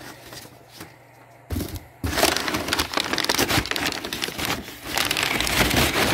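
Shipping box being opened by hand: cardboard and packing material handled, then torn and crinkled. The crackling turns loud and dense about two seconds in.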